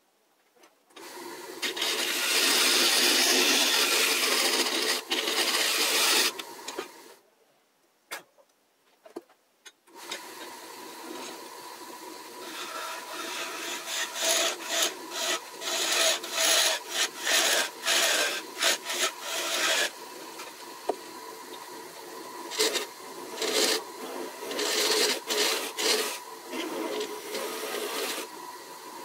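Wood lathe turning a small magnolia hollow form while a bent-shank hollowing tool scrapes out its inside, with the audio sped up four times: rough scraping and cutting noise in quick, uneven bursts over a steady motor whine. A loud stretch of cutting near the start stops about six seconds in, a few clicks follow in a short quiet break, and the lathe runs and cuts again from about ten seconds in.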